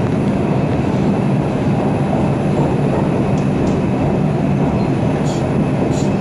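New York City Subway 4 train heard from inside the car as it runs past a station platform: a loud, steady rumble of wheels on rails, with a couple of light clicks near the end.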